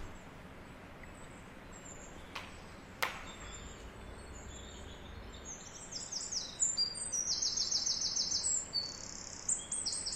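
Birds chirping, with quick high trills in the second half, over a faint outdoor hiss; two soft clicks come first.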